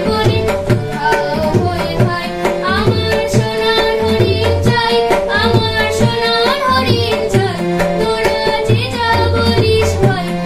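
A boy singing to his own harmonium, with tabla accompaniment: held reed notes under a wavering voice, and regular tabla strokes with low, repeating bass notes from the bayan.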